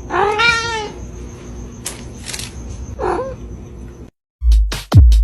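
A domestic cat meows: one drawn-out meow that rises and falls near the start, then a short meow about three seconds in. Loud electronic music with a heavy beat cuts in near the end.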